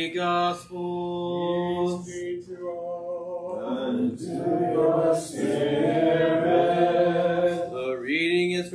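Eastern-rite liturgical chant sung unaccompanied: a single voice intoning on long held notes, then several voices join in a sung response about three and a half seconds in.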